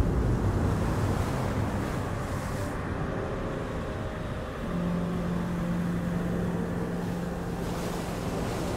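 Dark cinematic soundtrack: a dense low rumble opening on a heavy hit, with a low note held steady from about halfway through.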